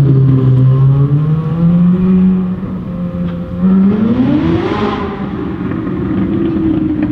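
Ferrari 458 Italia's 4.5-litre naturally aspirated V8 through a Capristo exhaust, under throttle: the engine note holds and slowly climbs, then sweeps sharply up about four seconds in and drops back to a lower steady note.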